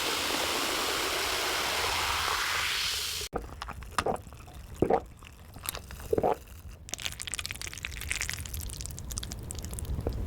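A steady watery hiss, like liquid pouring, for about three seconds that cuts off abruptly, followed by close-miked eating sounds: sharp mouth clicks and smacks, then a busy run of slurping and chewing on noodles.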